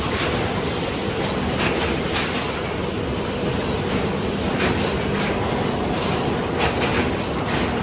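Cornetto cone production line running: a steady industrial machine hum with a rattling clatter and a few sharp clacks as foil-wrapped cones are moved along the conveyor.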